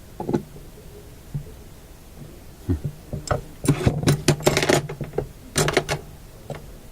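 Handling noises at a workbench: a string of sharp clicks and crackling scrapes in the middle stretch, over a faint steady low hum.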